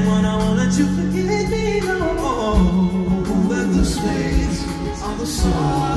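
Live band playing amplified music through an arena PA, heard from the audience, with a male lead vocal. A held bass note fills the first two seconds, then a beat with drum hits and the sung melody takes over.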